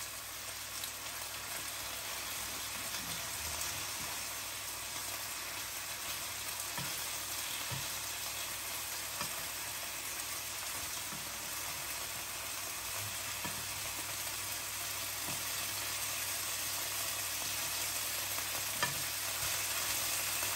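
Bacon frying in a pan with a steady sizzle, and a few light clicks as tongs turn the strips, one a little louder near the end.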